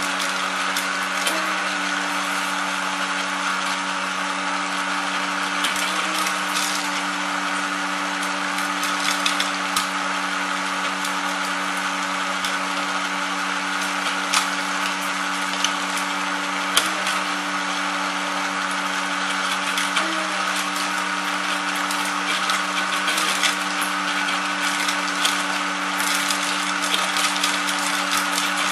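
Sunflower-seed shelling machine running: a steady motor hum under a dense rattling hiss, with scattered sharp clicks.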